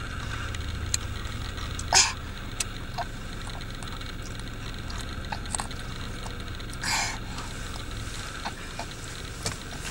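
A low, steady hum inside a car, with two brief soft noises: one about two seconds in and one near seven seconds, plus a few faint ticks.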